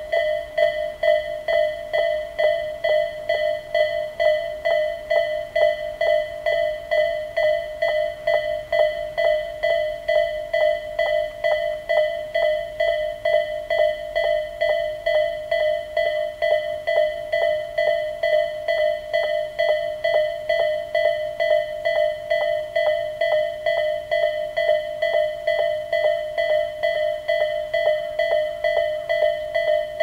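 Japanese railway level-crossing electronic warning bell sounding the Tobu 'A' tone, a rapid, evenly repeated ding that rings on unchanged: the crossing is closed with its barriers down, warning of an approaching train.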